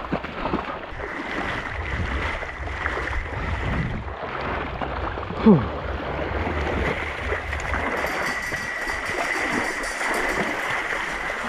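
Water splashing and sloshing as obstacle-race runners wade and crawl through shallow lake water under a wire-mesh net. About halfway through comes a short, loud cry with a falling pitch.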